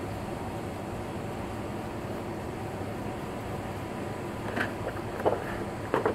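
Steady background hum and hiss, then a few short rustles and taps in the last couple of seconds as a freshly spray-painted sheet of card is handled and lifted.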